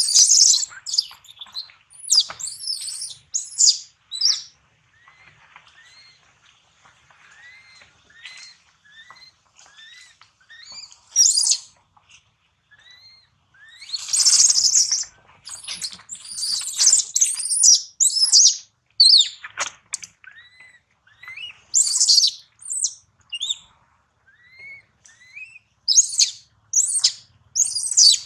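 Infant macaque screaming in distress while an adult macaque drags and pulls it. Bouts of shrill screams alternate with softer, short rising cries about once a second.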